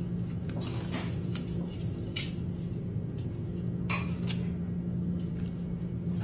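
A knife filleting small fish on a plastic cutting board: a few short taps and scrapes of the blade against the board, over a steady low hum.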